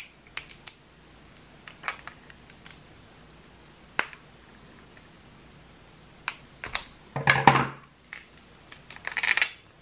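Scissors snipping and clicking as they cut tape wrapped around a small plastic zip bag, in scattered short clicks. Near the end the plastic bag and tape rustle louder twice as they are handled and peeled.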